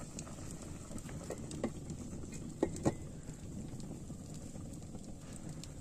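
Wood fire crackling under a pot, over a steady low rush of flame. An enamel pot lid clinks against the rim a few times, loudest twice close together about two and a half to three seconds in as it is set back on.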